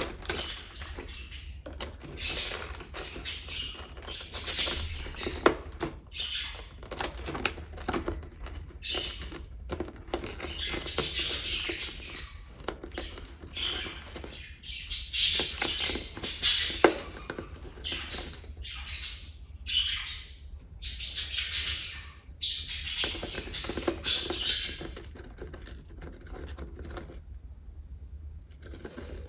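An African lovebird chattering in short, high, scratchy chirps while its beak taps and pecks in quick clicks against its reflection in a mirror.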